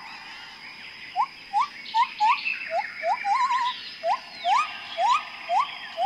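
Forest ambience: short rising whistled calls, about two a second, starting about a second in, with one longer wavering call in the middle, over a steady high insect drone.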